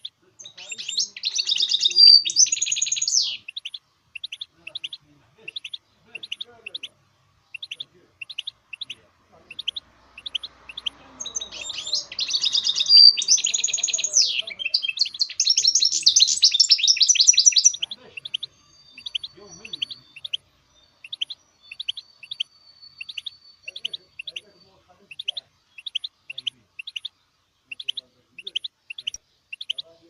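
Goldfinch mule, a goldfinch–canary hybrid, singing: a steady string of short high chirps, about two a second, broken twice by fast, loud twittering song phrases, near the start and across the middle, followed by a thin held whistle.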